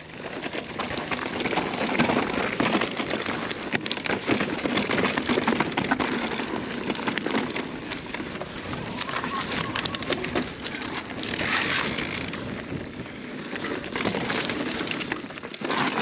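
Lapierre eZesty AM 9.2 e-mountain bike rolling down a loose dirt and gravel trail: a steady crunching rush from the tyres, with many small clicks and rattles from the bike over the rough ground.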